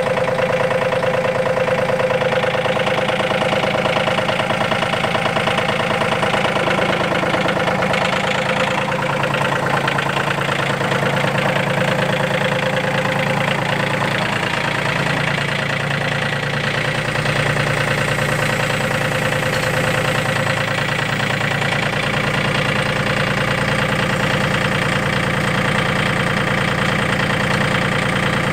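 RK37 compact tractor's diesel engine running steadily while the tractor is driven, its note changing slightly about nine seconds in.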